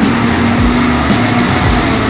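Motor vehicle engine running steadily close by, amid loud road traffic noise.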